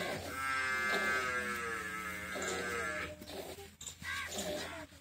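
A cow mooing: one long, drawn-out call beginning just after the start and lasting about two and a half seconds, followed by a shorter, lower call.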